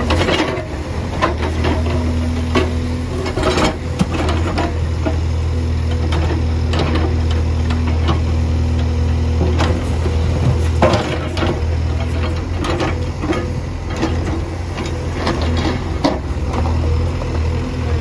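Case 851EX backhoe loader's diesel engine running steadily under load as the backhoe digs, with a low drone. Irregular knocks and scrapes come from the bucket working through soil and broken asphalt.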